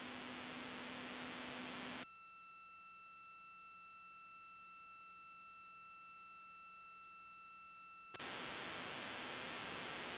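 Open radio channel hiss on the space-station communication loop between transmissions. About two seconds in the hiss cuts out, leaving a faint steady high tone for about six seconds, then the hiss returns.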